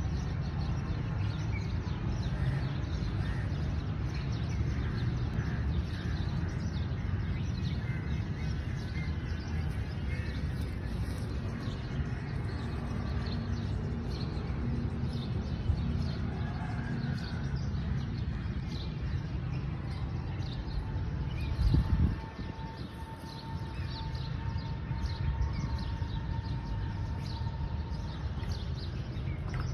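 Outdoor ambience: a steady low rumble with many small birds chirping over it, and a brief low bump about two-thirds of the way through.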